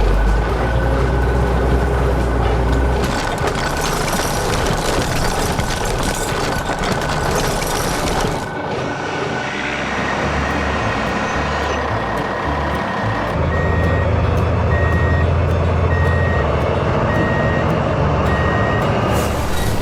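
Heavy construction truck engines running, with a reversing alarm beeping at an even pace, about two beeps a second, in the second half. The sound changes abruptly about eight seconds in.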